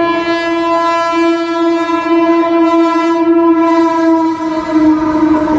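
Loud, deep horn of an Indian Railways superfast express train, sounded as one long unbroken blast. About four and a half seconds in its pitch drops slightly as the train passes, and the rumble of the running train rises beneath it.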